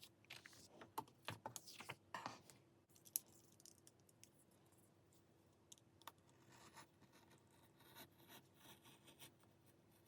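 Faint paper cutting and handling: scattered soft clicks and scratches, busiest in the first two or three seconds, with one sharper click a little after three seconds and fainter ticks after.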